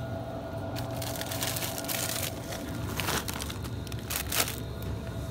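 Plastic bag of frozen edamame crinkling and crackling as it is handled, with a sharper crackle about four seconds in.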